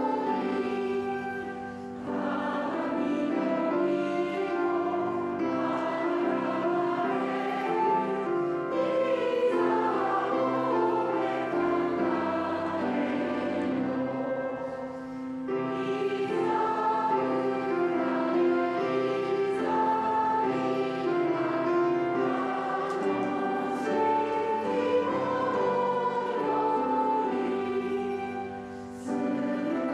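A choir singing a Christmas hymn in long held phrases. It breaks off briefly about 2 seconds in, again about halfway through, and near the end.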